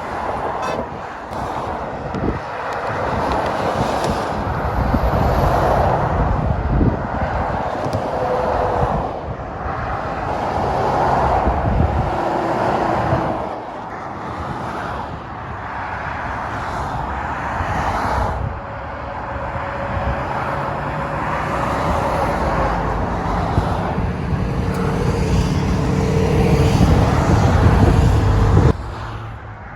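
Motorway traffic going by, lorries among cars: tyre and engine noise swelling and fading as one vehicle after another passes. A heavy low diesel engine note builds near the end, then the sound drops off abruptly.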